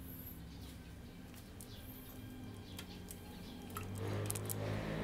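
Light clicks and rustles of wiring and zip ties being handled on a motorcycle, over a steady low hum. About four seconds in, a louder, fuller mechanical noise comes up.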